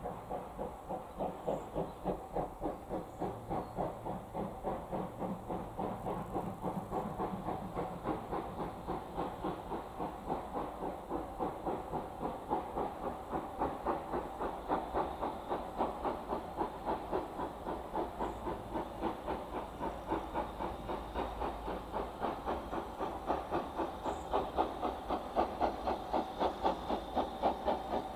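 Steam locomotive working a train, its exhaust beats chuffing in a steady rhythm of about two to three a second, growing louder near the end as it approaches.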